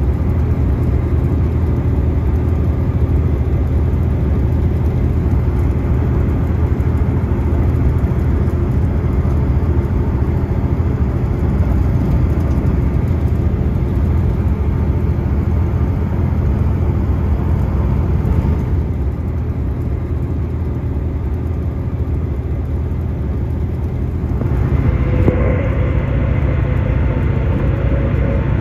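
Cabin noise inside a South Western Railway Class 159 diesel multiple unit running at speed: steady rumble of the underfloor diesel engine and wheels on the rails. The sound eases a little about two-thirds of the way through and swells again, with a higher whine, a few seconds before the end.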